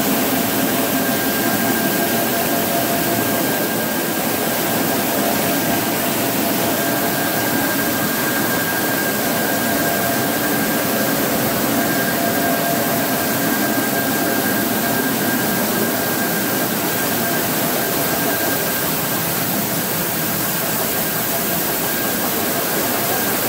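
Corn-milling machinery running: a loud, steady rushing noise of mills and air-conveying fans, with a steady high whine on top.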